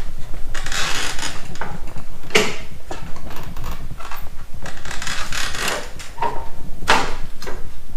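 Metal clunks and scraping as the snow plow's mounting bracket is shifted into line for its pin, with two sharp knocks, one about two and a half seconds in and one near the end.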